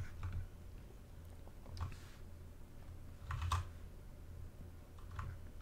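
A few soft computer keyboard key clicks: one about two seconds in, a short cluster of presses about three and a half seconds in, and another near the end, over a low steady hum.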